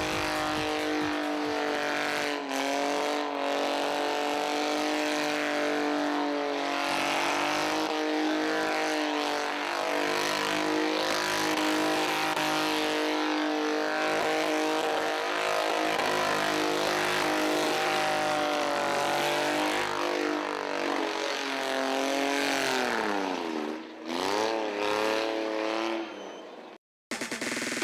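BMW car engine held at high revs during a smoky burnout, its pitch wavering with a brief dip early on and a drop and climb near the end, over the hiss of spinning tyres. The sound cuts off abruptly just before the end.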